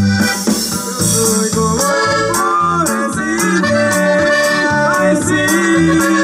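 Norteño music: an accordion melody over a steady bass-and-drum beat, with men singing into microphones.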